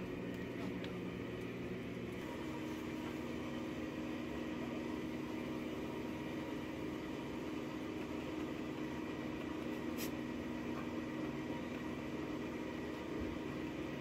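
A machine running with a steady low hum, unchanging throughout, with one brief click about ten seconds in.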